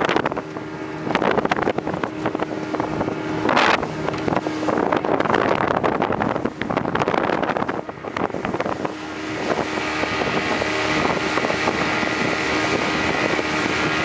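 Outboard-powered motorboat running fast over choppy water, its hull knocking on the waves, with wind on the microphone. From about nine seconds in, the engine's steady whine comes through more clearly.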